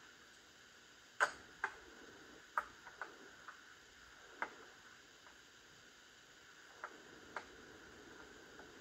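Scattered light clicks and taps at irregular intervals, from handling small parts and tools while fitting a fuel line into a chainsaw that is not running. The sharpest click comes about a second in, with a quick pair just after.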